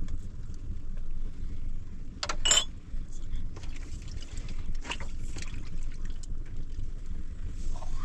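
Small wood fire crackling over a steady low rumble, with scattered light knocks and a single ringing clink of a metal dish about two and a half seconds in.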